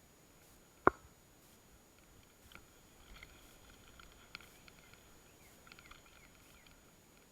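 A single sharp crack about a second in, followed by faint high chirps and light ticks.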